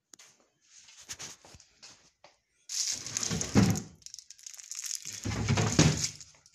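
Rustling and crinkling handling noise: faint rustles, then two loud stretches of crumpling, one about three seconds in and another about five seconds in.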